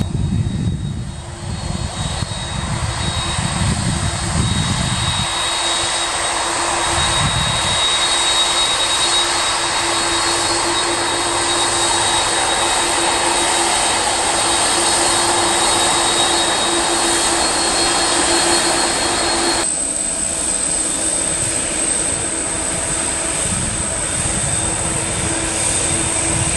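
FedEx Boeing 767 freighter's twin turbofan engines running steadily at low thrust as it taxis, a jet roar with a steady fan whine, plus low rumbling in the first several seconds.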